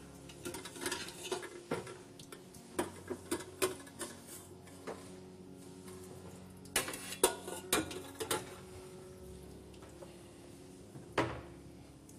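Stainless-steel pots and lids clattering and knocking as they are handled and set down, in several bursts of clinks, the loudest in the middle and a last single knock near the end.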